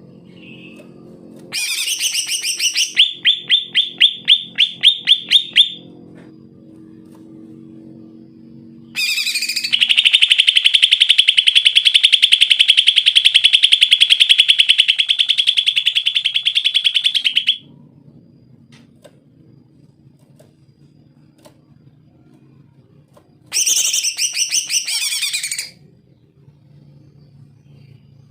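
Male green leafbird (cucak ijo) singing hard in three loud bouts. The first is a run of quickly repeated sharp notes, about four a second. The second is a long, fast, rattling trill lasting about eight seconds, and the third is a short burst near the end. A faint low hum sits between the bouts.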